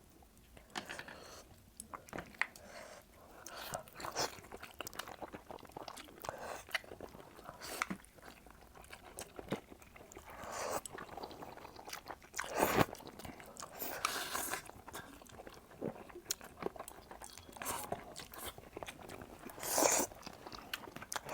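Close-miked mouth sounds of a person chewing and biting octopus: irregular wet clicks and smacks, with a few louder bites about two-thirds of the way through and near the end.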